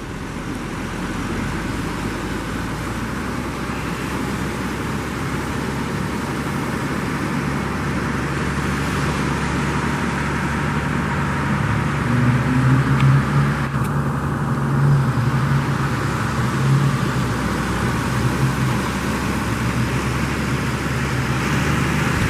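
A motor vehicle or boat engine running steadily, its hum growing louder about halfway through, over a constant rushing wash of surf and wind.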